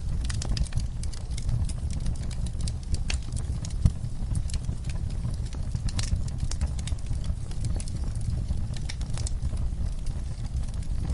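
Wood fire crackling in a fireplace: frequent irregular pops and snaps over a steady low rumble, with one louder pop about four seconds in.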